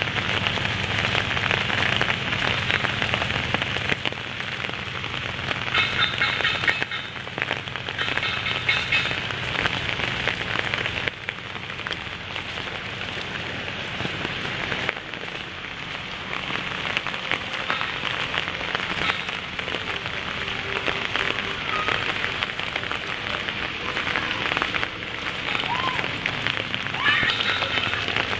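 Rain falling steadily on leaves, grass and wet ground, a dense, even patter of many small drop hits.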